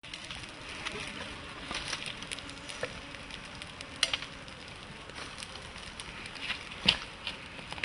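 Open wood fire crackling, with wild boar meat sizzling in the flames: a steady hiss dotted with sharp pops, the loudest about four seconds in and again near seven seconds.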